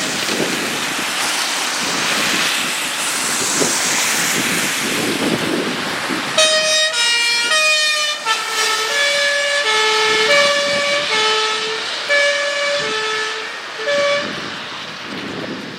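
Fire engine's two-tone horn alternating between a high and a low note, each note held well under a second. It comes in about six seconds in over vehicle engine and road noise and stops shortly before the end.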